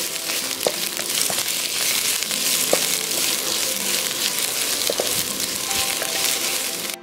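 Sliced lemongrass, kaffir lime leaves and garlic sizzling in hot oil in a nonstick wok, with a few light clicks of a spatula stirring them.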